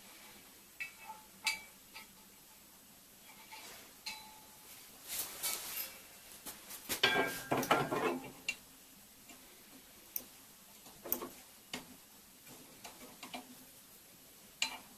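Steel parts of a sheet metal folder clinking and knocking as a bending arm is fitted onto its pivot pin and a washer and nut are handled. Scattered light metal clinks, with a louder rattle of metal on metal about seven to eight seconds in.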